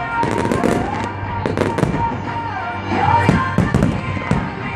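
Fireworks display: aerial shells bursting in a rapid string of bangs and crackles, with music playing under them.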